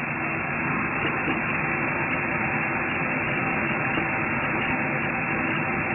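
Chicken pieces in egg batter frying in a pan of hot oil: a steady sizzle with scattered small pops.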